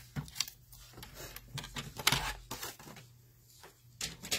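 Sliding-blade paper trimmer cutting the corners off a sheet of patterned paper: a run of short clicks and scrapes as the blade carriage is moved along its rail, a longer cutting swish about two seconds in, and two sharp clicks near the end.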